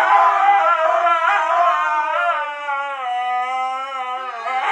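Two huskies howling together in long, wavering tones whose pitch slowly glides up and down, the two voices overlapping.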